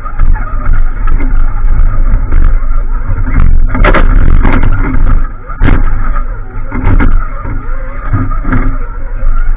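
Off-road vehicle crawling over a rocky trail, heard from a camera mounted on it: a steady motor and drivetrain drone with frequent knocks and clatter as it climbs over the rocks.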